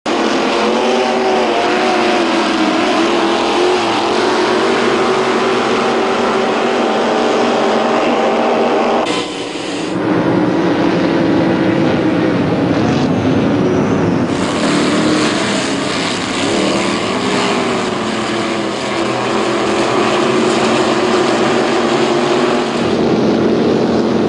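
Supercharged racing powerboat engines running hard and loud, their pitch rising and falling with the throttle. The sound changes abruptly about nine and fourteen seconds in.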